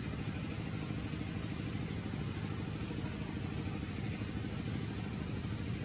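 A motor engine running steadily at idle: a continuous low rumble with an even hiss above it, no change in pitch or level.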